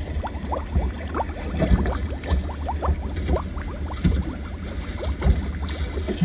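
Water running and gurgling in a stainless steel sink, with many quick bubbling notes over a low rumble.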